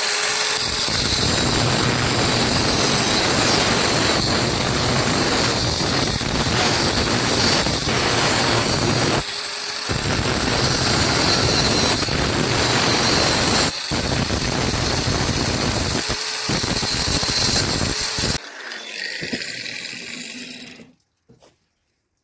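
Power tool running hard against steel pipe, a loud continuous grinding or cutting noise. It stops briefly about nine and a half seconds in and again around fourteen seconds, then cuts off near eighteen seconds, leaving a quieter noise that dies away about three seconds later.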